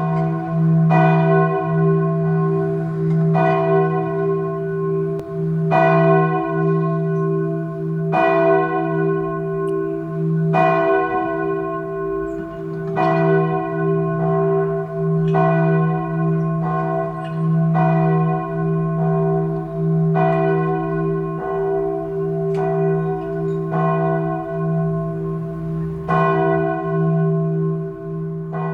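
A church bell tolled slowly, struck about every two and a half seconds, its low hum ringing on between the strokes.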